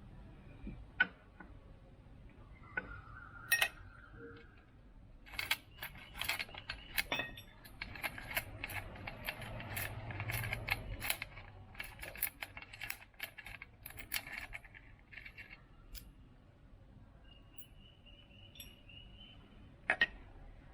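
Small metal exhaust-mounting hardware, bolts, nuts and spring washers, clinking and rattling as it is handled: a few scattered clicks, then a dense run of clinks through the middle.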